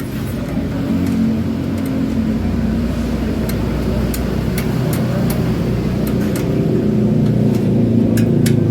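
A steady low engine-like hum runs throughout, with a scatter of short sharp clicks of small parts and tools being fitted, several of them in the second half.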